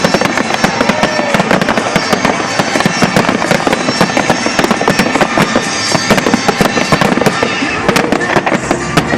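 Fireworks display going off in a dense, continuous barrage of rapid crackles and bangs.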